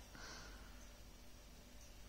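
Near silence: room tone, with a faint breath just after the start.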